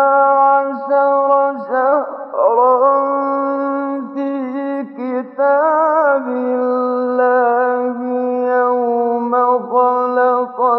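A male Quran reciter chanting in the melodic tajweed style: one voice holding long drawn-out notes that waver in ornamented turns, broken by a few short breaths.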